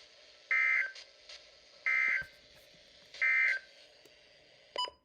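NOAA Weather Radio EAS end-of-message data bursts: three short, identical warbling digital tone bursts, each about a third of a second long and about a second apart, signalling the end of the flash flood warning. A brief click follows near the end.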